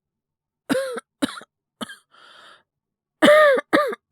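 A man coughing in a fit: three short coughs, a breath in, then two harder, louder coughs close together near the end. The coughing is acted, voicing a character sick with fever and a cough.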